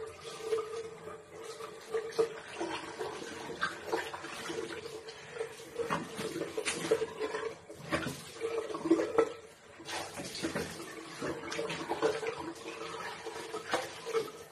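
Water splashing at a bathroom sink as a face is rinsed of dried facial-wash foam, with irregular splashes and the tap running.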